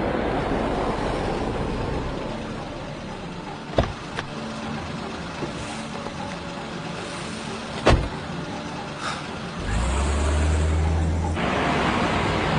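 Vintage sedan's engine running as the car stands. A car door clicks open a little under four seconds in and shuts with a knock about eight seconds in, then the engine rises and the car drives off.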